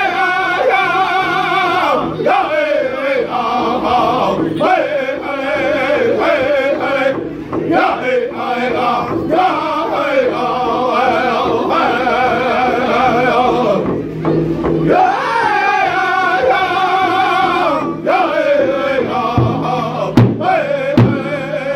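Powwow drum group: several men singing together in loud, sliding unison phrases while beating a large shared hand drum with sticks. A few sharp, louder drum strikes stand out near the end.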